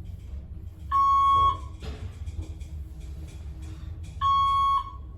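Dover elevator's electronic signal beep, a steady tone sounding twice, each about half a second, roughly three seconds apart, over a low steady hum, with a few light clicks about two seconds in.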